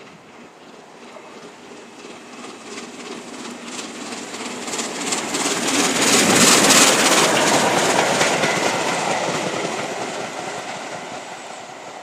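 Train hauled by the steam locomotive 60163 Tornado passing at speed, its wheels clicking over the rail joints. The sound swells to a peak about six seconds in and then fades away.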